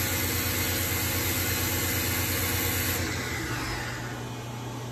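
Spindle of a 1998 Fadal VMC4020HT vertical machining centre running at high speed with no cut: steady tones over a pulsing low hum. About three seconds in, the hiss drops away and the sound slowly fades with a falling pitch as the spindle winds down.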